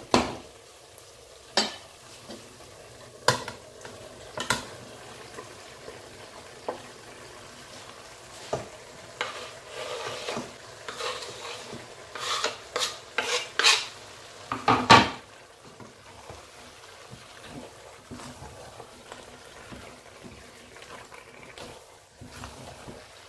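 Wooden spatula stirring thick egusi soup in a stainless steel pot, with a few sharp knocks of the spatula against the pot in the first few seconds. Midway comes a run of scraping strokes as chopped fresh pepper is scraped off a wooden chopping board into the pot. Near the end there are only faint stirring sounds.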